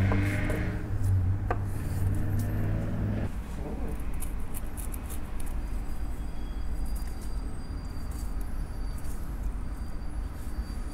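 Faint knife clicks and scrapes on a wooden cutting board as a skinned fish fillet is trimmed, over a steady low machine hum that cuts off about three seconds in, leaving a low rumble and a faint high whine.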